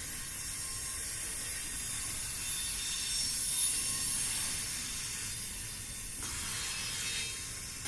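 Intermodal freight cars of a long train rolling past on the rails: a steady hiss of wheels on track, with faint thin high squeals above it.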